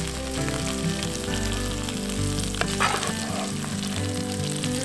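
Minced meat sizzling in a frying pan over a campfire as it is stirred with a wooden spatula, with soft background music under it.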